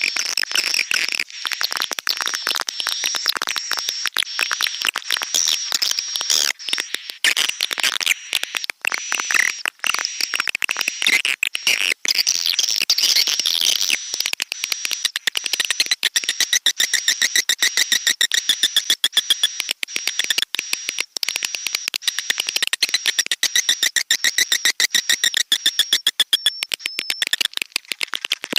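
Recorded swiftlet lure call: dense, fast, high-pitched chirping and twittering of edible-nest swiftlets over a rapid clicking rhythm, the kind of track played to draw swiftlets into a nesting house.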